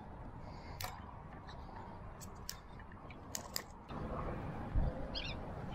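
Wind rumbling on the microphone, with several sharp clicks and ticks as a spinning reel and rod are handled. The wind gusts harder near the end.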